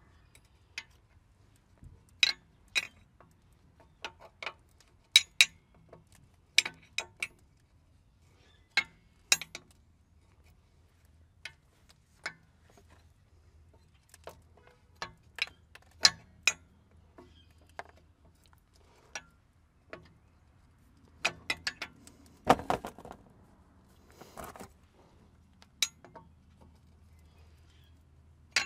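Metal wrench clinking and ticking against the air line fittings on a semi truck's brake chamber as the lines are reconnected and tightened. The clicks are sharp and irregular, often in quick pairs, with a louder knock about two-thirds of the way through.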